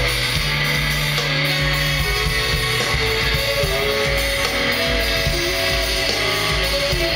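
Live rock band playing an instrumental passage: saxophones and a trumpet play long held notes that step from one pitch to the next over electric guitar, bass and drums.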